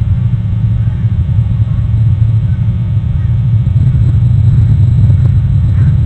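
Loud, steady low rumble of wind buffeting an outdoor microphone, with a few faint bird calls near the end.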